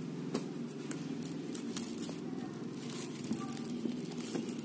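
Clear plastic shrink wrap on a cardboard box crinkling and crackling in quick, irregular clicks as hands handle it and peel it off. A steady low hum runs underneath.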